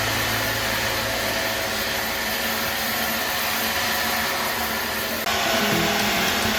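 Steady machine noise, a running motor with a hiss-like whir, that changes abruptly about five seconds in.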